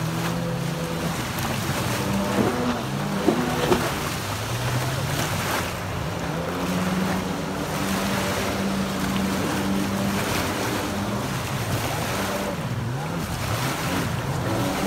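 Boat motor running on the water, its pitch rising and falling with the throttle, over wind and water noise.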